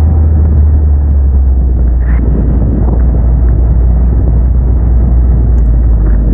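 Ariel Atom's engine running steadily as the open-cockpit car rolls forward, a continuous low drone mixed with road and wind noise.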